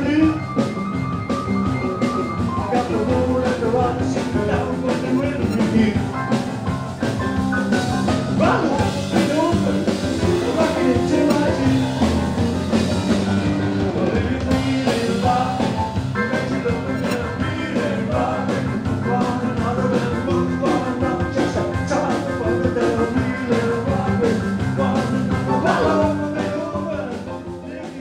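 Live rock and roll band playing: drum kit and electric guitar with a steady beat, fading down near the end.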